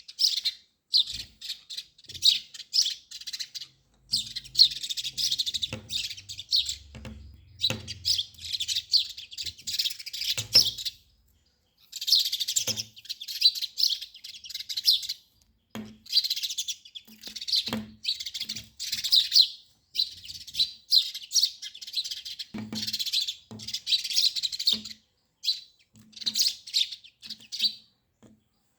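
Birds chirping and twittering in rapid, busy bouts of a few seconds each, separated by short pauses.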